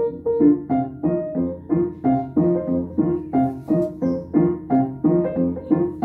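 Piano playing a ragtime piece, notes struck in a steady, even rhythm of about four a second.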